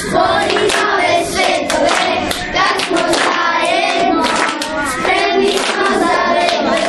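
A group of children singing together, with hands clapping along.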